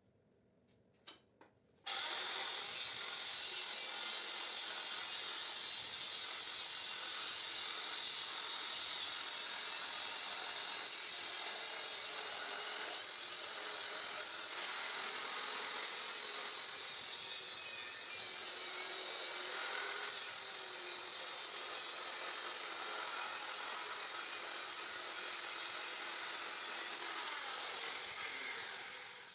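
A power tool cutting through a scroll compressor's steel shell, a steady, continuous grinding-saw noise that starts about two seconds in and runs without a break until it fades near the end.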